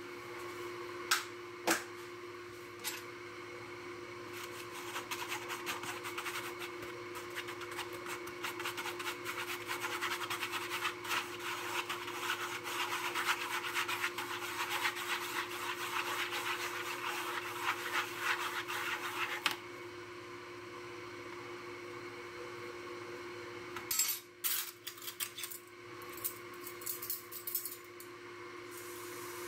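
A metal fork whisking eggs in a foam plate: a rapid scraping rub against the plate that runs for about fifteen seconds and stops abruptly. A few sharp clicks come before it and a handful of knocks near the end, over a steady background hum.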